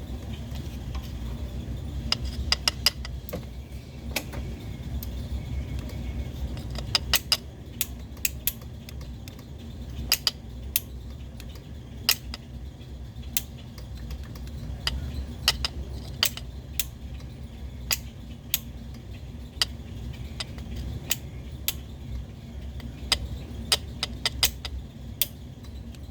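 Irregular sharp clicks and small metallic taps from a faulty starter relay being handled and tapped to make it latch, over a steady low hum.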